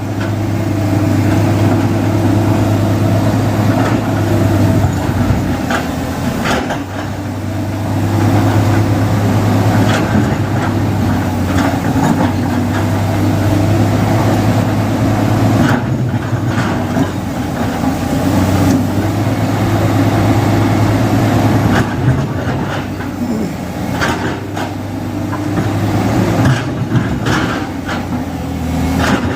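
Heavy diesel engine of an earthmoving machine running steadily under working load. It swells and eases every few seconds, with occasional knocks and clanks.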